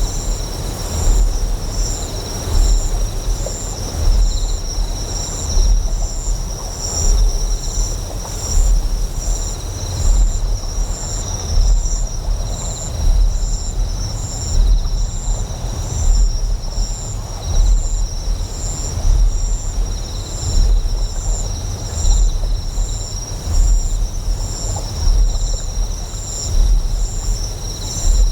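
Ambience of a deep generator hum that swells in a slow, even pulse about every one and a half seconds. Over it run steady high insect chirring and a higher chirp pulsing in a regular rhythm, with a faint wash of flowing water.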